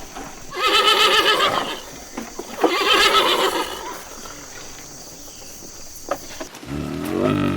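Animal calls: two loud, wavering, quavering calls of about a second each, followed near the end by a lower-pitched call.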